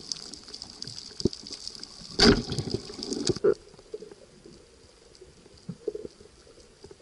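Underwater sound picked up by a diver's camera: a steady fine crackling with many clicks, and one loud rushing burst about two seconds in. After about three and a half seconds it drops to quieter water noise with a few soft thumps.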